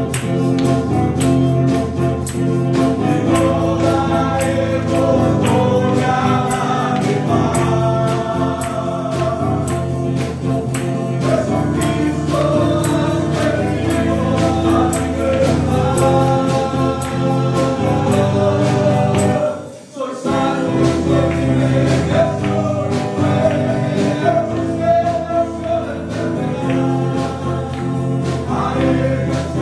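Spanish-language Christian worship song: a man singing into a microphone over backing music and choir with a steady beat. The music dips out for a moment about two-thirds of the way through.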